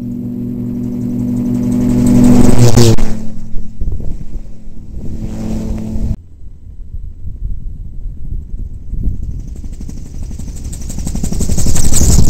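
ELA gyrocopter making two low flybys with engine and propeller running. The engine note swells and drops in pitch as the aircraft passes about three seconds in, then falls off abruptly around the middle. A second approach builds to a loud pass directly overhead near the end, with a fast, even whooshing chop from the rotor.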